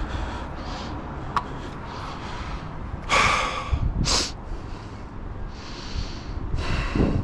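A man's heavy, frustrated breathing: three loud snorted exhales, about three, four and seven seconds in, over a steady low rumble. There are two faint clicks near the start.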